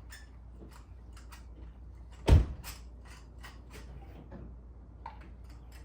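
Light, irregular clicks and taps of hand tools on metal, with one loud knock a little over two seconds in.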